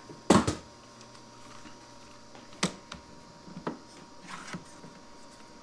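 Scattered clicks and knocks of a DeWalt quick clamp being set and tightened on a wooden stop. The loudest is a sharp double knock about a third of a second in, followed by a click at about two and a half seconds and a few fainter ticks.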